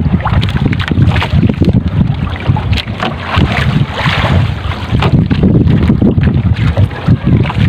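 Wind buffeting the microphone and choppy sea water washing against a small outrigger boat's hull, with scattered knocks, drips and splashes as a wet triple-layer net is hauled in by hand over the side.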